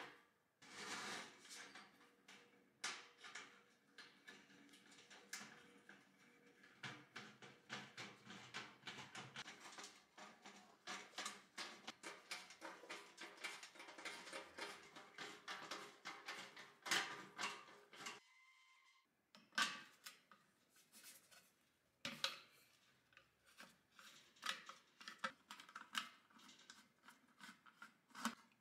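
Faint runs of small metallic clicks and scrapes as sheet-metal screws are driven by hand with a nut driver into a torpedo heater's metal shell and burner plate. There is a brief break about 18 seconds in.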